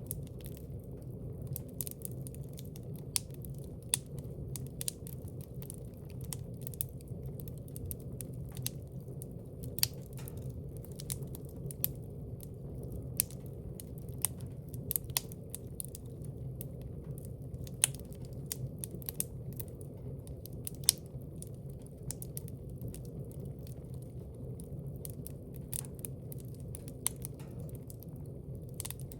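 Wood fire burning in a fireplace: a steady low rush under frequent irregular crackles and pops, with a few sharper snaps standing out.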